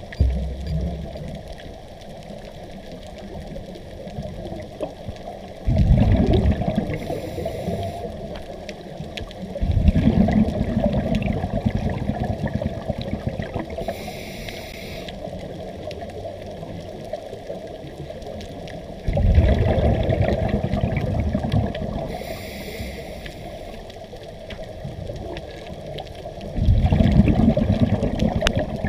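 Scuba breathing heard underwater through a camera housing: four long bursts of exhaled regulator bubbles bubbling and rumbling, a few seconds each, about six, ten, nineteen and twenty-seven seconds in, with softer hissing between them.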